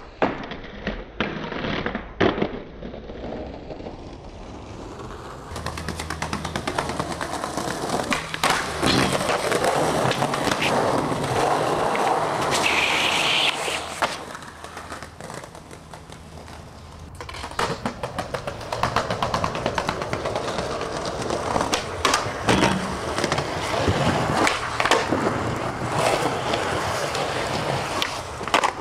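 Skateboards rolling on concrete and brick pavement, with repeated sharp clacks of tail pops, landings and board impacts.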